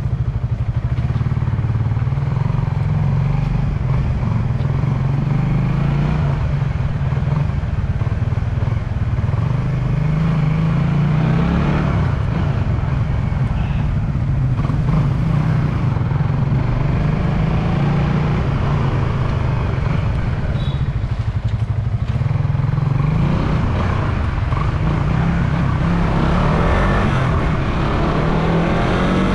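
Suzuki Raider 150 Fi's single-cylinder four-stroke engine running while riding, its pitch climbing and dropping several times as the rider accelerates and shifts.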